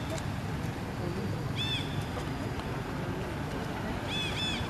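Short, high-pitched arched calls from an animal: one about a second and a half in, then two in quick succession near the end, over a steady low background rumble.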